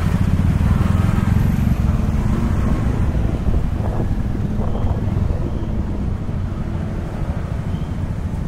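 Scooter and car engines running in slow, close street traffic: a steady low rumble of idling and creeping motorbikes that eases slightly after about five seconds.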